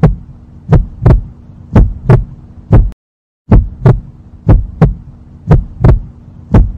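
Heartbeat sound effect: loud paired low thumps, about one beat a second, over a steady hum. It drops out for about half a second around the middle.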